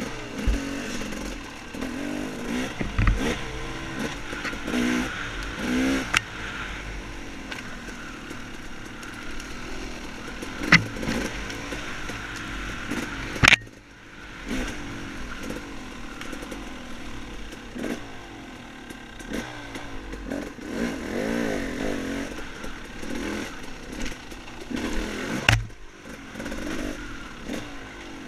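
Dirt bike engine revving up and down as it is ridden off-road, with a few sharp knocks along the way.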